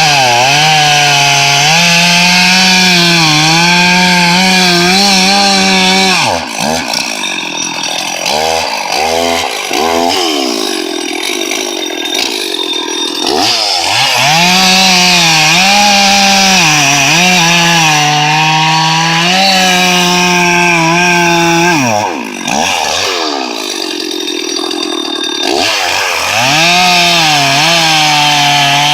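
Stihl MS 460 two-stroke chainsaw held at full throttle in three long cuts, its pitch sagging and recovering as the chain bites into the wood. Between cuts the engine is let off and blipped, the revs falling and rising in quick bursts.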